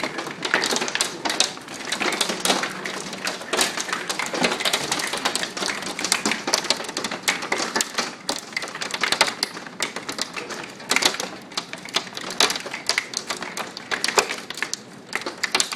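Hailstones pelting hard surfaces in a dense, rapid clatter of sharp clicks and impacts, heavier in spells.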